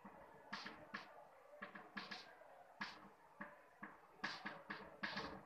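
Chalk tapping and scratching on a chalkboard as words are written: a faint, quick, irregular run of short taps and scratches.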